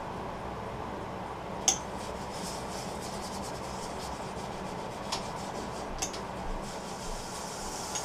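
Sandpaper rubbing against the Russian olive wood inside a small turned bowl, sanded by hand with a finger-pressed pad, over a steady low hum. A few sharp clicks come through, the loudest a little under two seconds in.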